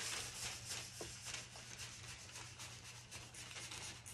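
Thin plastic bag being rubbed by hands over wet decoupage paper on a wooden board: a steady, soft rustle with many small crackles. The hands are smoothing the wet paper flat and pressing out wrinkles.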